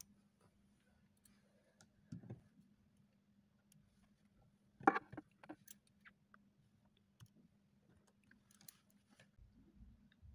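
Faint clicks and taps of steel surgical instruments being handled over a steady low hum, the sharpest click about five seconds in.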